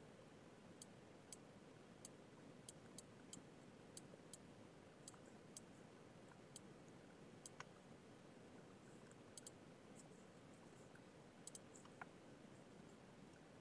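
Faint, irregular clicking of a computer mouse, a couple of clicks a second at times, over a low steady hiss.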